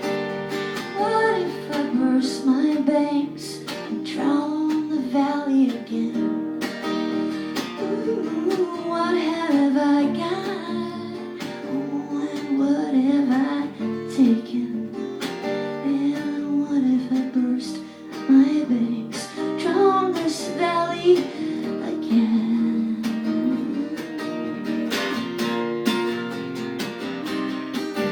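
Song music: acoustic guitar strummed steadily, with a melody line rising and falling over it.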